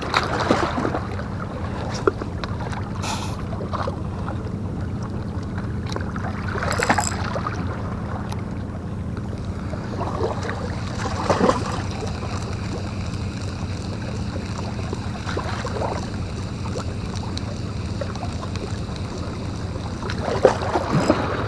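Steady low motor drone with fixed pitched hum lines, under wind noise on the microphone, with a few brief knocks or rustles.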